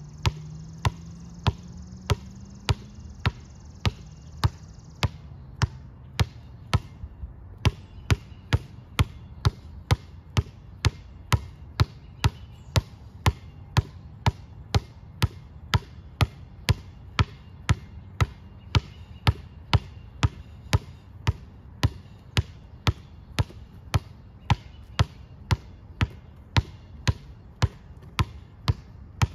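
Basketball dribbled on an outdoor concrete court in a steady rhythm of about two bounces a second, each bounce a sharp slap.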